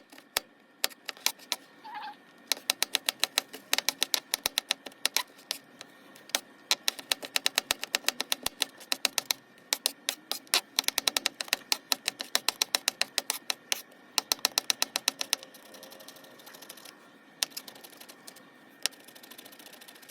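Rapid runs of light, sharp clicks, several a second, in bursts with short pauses, becoming sparse near the end.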